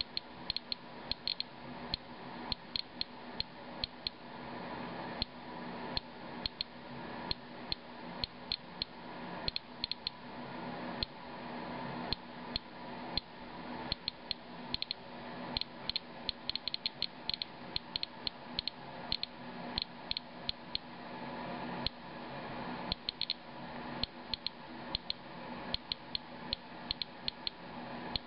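Inspector Alert Geiger counter clicking at random intervals, about three or four clicks a second and sometimes in quick bunches, as it counts radiation from a rain-water sample at roughly 200–220 counts per minute.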